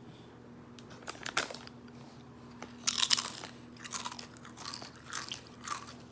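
A person biting into and chewing a Tapatio-flavoured Doritos tortilla chip. There is a crisp crunch about a second in and a loud bite about three seconds in, then crunching chews about two a second.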